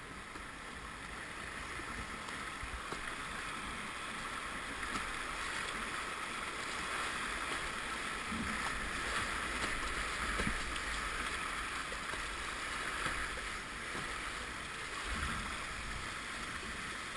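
Rushing river water in rapids, a steady hiss that grows louder toward the middle and eases again.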